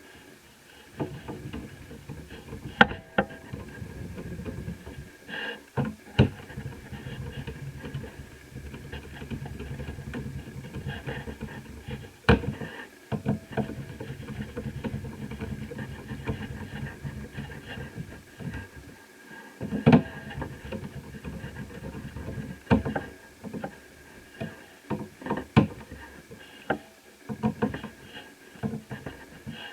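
Handling of laptop parts and tools: irregular sharp clicks, taps and knocks of plastic and metal, over a low rustling rumble of handling.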